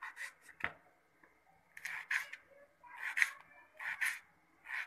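Kitchen knife slicing a raw potato into thin slices on a plastic cutting board: a series of short crisp cuts, each ending on the board, in irregular groups about once a second, with one sharper knock on the board near the start.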